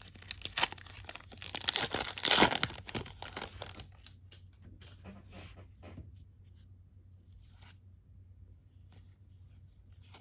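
A 2018 Topps Series 1 baseball card pack wrapper being torn open, crinkling and tearing for about four seconds, loudest around two and a half seconds in. Then only faint rustles and light clicks of the cards being handled.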